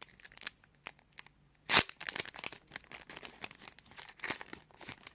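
Foil booster pack wrapper crinkling and being torn open, with one loud rip about two seconds in.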